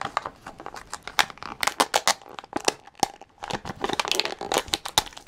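Plastic wrapping of a Num Noms blind pack being torn open and crinkled by hand: a run of irregular crackles and snaps, busiest about a third of the way in and again toward the end.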